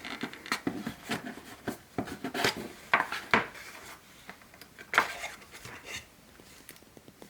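Hands unpacking an earphone box: packaging being handled, with short clicks, taps and rubbing, busiest in the first four seconds and sparser after.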